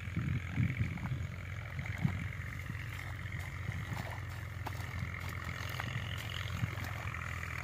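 A spade churns wet mud in a shallow water channel, with squelching, sloshing strokes every second or two as soil and water are mixed into mud plaster. Under it runs the steady hum of an engine.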